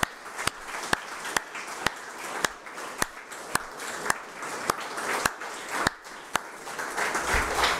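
Applause in a hall, with one person's claps close to the microphone standing out sharply and evenly, about two a second, over the softer clapping of the room.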